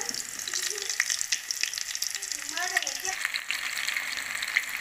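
Batter-coated chicken pakoras deep-frying in hot oil in a kadai: a steady sizzle full of small crackling pops, growing stronger about three seconds in.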